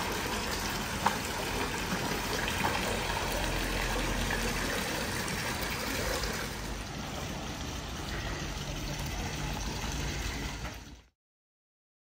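Stone garden fountain's water splashing and trickling into its basin, a steady sound that cuts off suddenly near the end.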